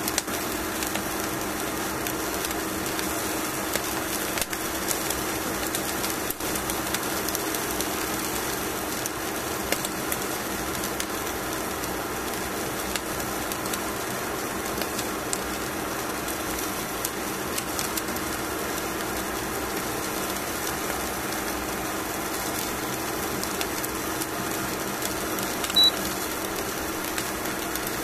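Steady mechanical hum with a constant low tone and a hiss, from a cooking appliance running while salmon cooks on foil, with a few faint clicks and one short high beep near the end.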